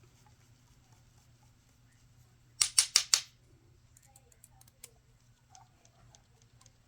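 Four quick, sharp rasping clicks in a row about two and a half seconds in, then a few light ticks: small hand tools and metal parts being handled while assembling an RC axle.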